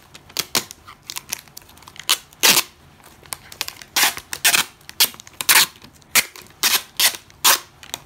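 Clear packing tape being pulled off its roll in a quick series of short, loud rips as it is wrapped tightly around a cardboard rack.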